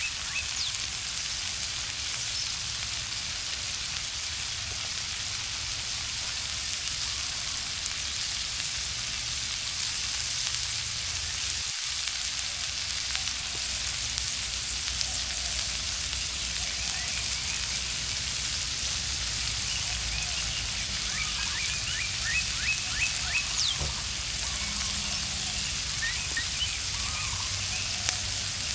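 Food sizzling in a pan over a campfire: a steady frying hiss with faint crackles.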